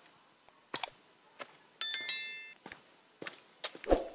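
Footsteps crunching on a dirt trail covered in dry leaves, with a heavier thump near the end. About two seconds in, a bright bell-like ding rings out and fades within half a second: the notification-bell sound effect of a subscribe-button animation.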